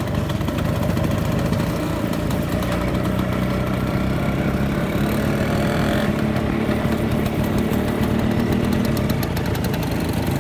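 Bajaj Chetak scooter engine running steadily as it is ridden along. Its note rises slightly a couple of seconds in.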